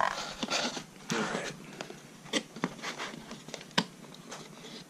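Cardboard packaging being handled as a small diecast toy car is worked free of its cardboard insert: a scatter of small clicks and scrapes with rustling between them.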